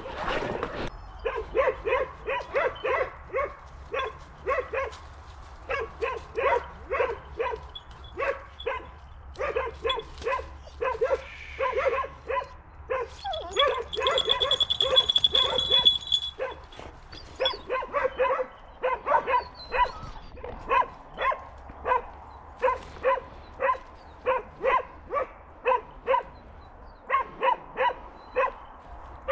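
Hunting dog barking over and over, quick short barks about three a second with brief pauses. A steady high-pitched tone, louder than the barking, sounds for about three seconds midway.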